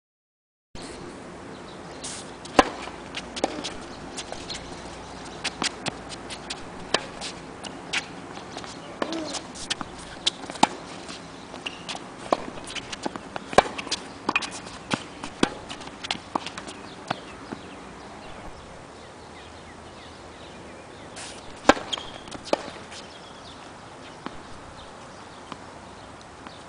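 Tennis balls struck with rackets and bouncing on a hard court in a rally: a series of sharp pops at irregular intervals, starting about a second in, a few hits much louder than the rest.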